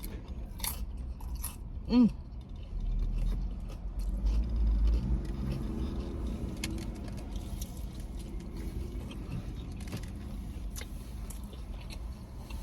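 Close-up biting and chewing of crispy fried food, with scattered crunches and mouth clicks. A low rumble comes in about three to five seconds in.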